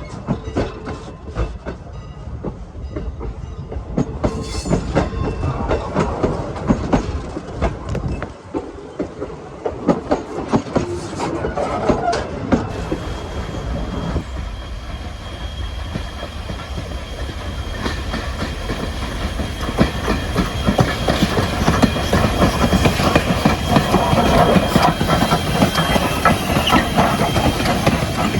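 Steam-hauled excursion train rolling past, its wheels clicking over the rail joints in a steady clatter that grows louder toward the end.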